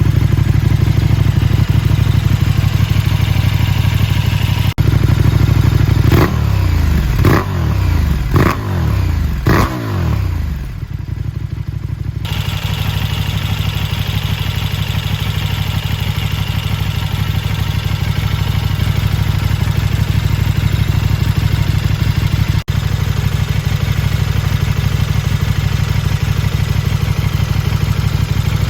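KTM 1290 Super Duke R's V-twin engine with an Akrapovič silencer idling. About six seconds in it is blipped four times in quick succession, each rev rising sharply and falling back, before it settles back to a steady idle.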